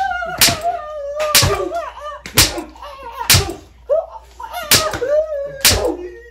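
A child's staged beating: sharp slaps landing one after another, about one a second.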